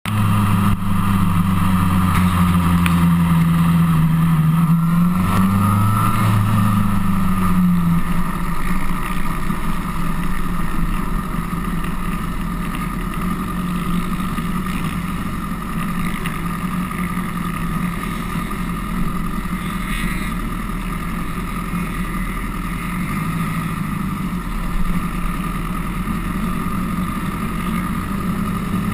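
Honda CBR1000RR's inline-four engine running at low revs, its pitch dipping and then rising briefly about five or six seconds in. After about eight seconds it settles to a quieter, steady idle.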